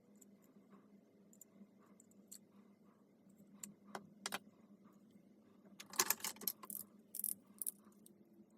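Light clicks, then a short burst of small metallic rattling and jingling, like small hard parts or screws being handled, about six to seven and a half seconds in, over a faint steady hum.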